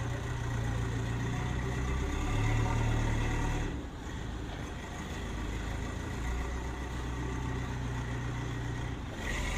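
Heavy construction machine's engine running steadily, dropping in level briefly just before four seconds in.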